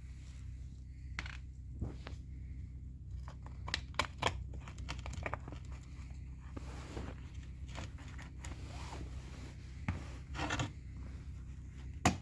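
Small clicks, taps and short scrapes of small metal parts and hand tools being handled on a workbench during a chainsaw carburettor rebuild, with a sharp click near the end. A steady low hum runs underneath.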